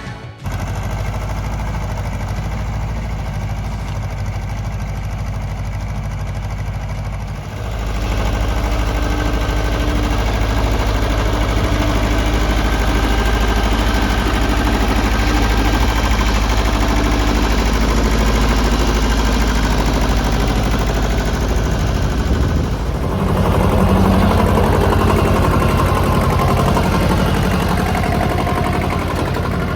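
Ford 1700 compact tractor's three-cylinder diesel engine running steadily. It grows louder about a quarter of the way in and changes again about three-quarters of the way through.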